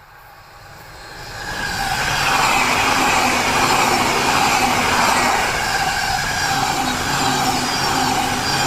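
E259 series Narita Express electric train going by, growing louder over the first two seconds and then staying loud as it passes.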